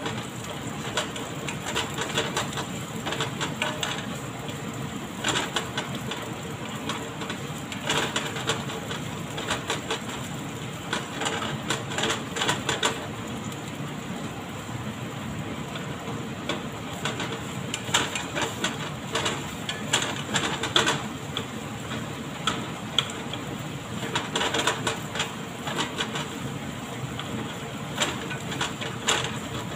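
Sliced onions with garlic and ginger sizzling in oil in a nonstick frying pan, with a spatula scraping and clicking against the pan in irregular bursts as they are stirred.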